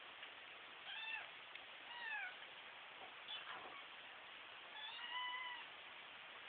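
Kittens mewing: three high, thin mews, one about a second in, a falling one about two seconds in, and a longer held one about five seconds in.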